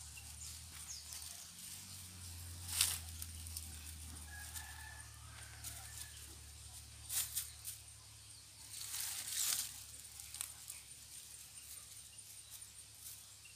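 Chickens and a rooster calling faintly in the background, with three short rustling noises close by, the loudest about three seconds in.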